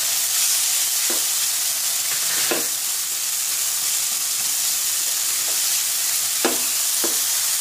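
Chopped onions, tomato and noodles sizzling in hot oil in a non-stick kadhai as a silicone spatula stirs them, giving a steady frying hiss. The spatula knocks briefly against the pan about four times.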